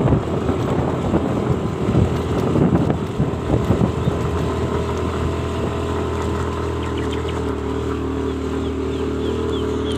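A motor vehicle's engine running at a steady speed. The sound is rough and uneven for the first few seconds, then settles to an even hum.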